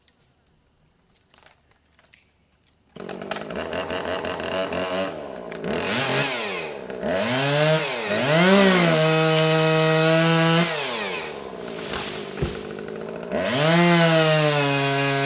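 A chainsaw bursts in about three seconds in after a few faint clicks. It revs up and down several times, then holds at full throttle while sawing through small trees, eases off, and revs up again near the end.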